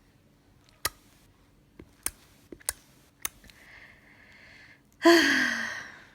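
A few sharp clicks spaced irregularly, then about five seconds in a loud, breathy vocal sound that slides down in pitch over about a second.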